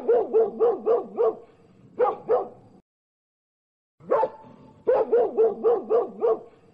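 A dog barking in quick runs of about four barks a second, then a pair of barks; after a second of silence the same pattern of barks comes again.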